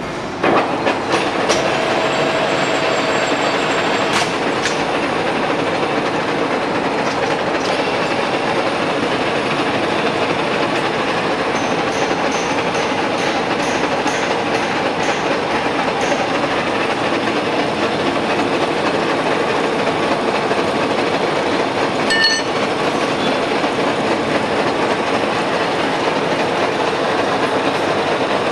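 Manual vertical milling machine running, its spindle and gearbox giving a steady, dense mechanical rumble with a faint rhythmic clatter, as a dovetail cutter mills a slot in fluoroplastic (PTFE). The noise steps up about half a second in, and there is one brief knock a little over twenty seconds in.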